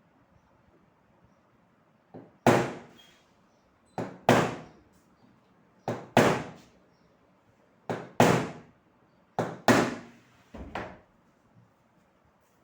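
Hammer blows on metal while working on an exhaust fan motor, likely to free a tight nut. They come in six pairs, a light tap then a heavy strike, about every two seconds, and each rings briefly.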